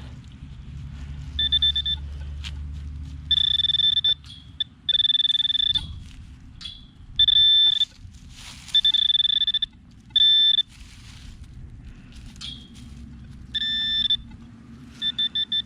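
Metal detector giving a steady high electronic tone in repeated bursts of half a second to a second, as it is passed over a target being dug out, with scraping of digging in hard dirt between the tones. Near the end the tone turns into a fast string of short beeps.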